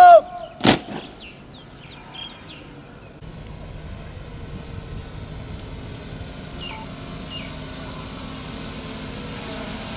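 One sharp knock just under a second in, then steady outdoor background rumble with a few faint bird chirps, and a vehicle engine hum that grows toward the end.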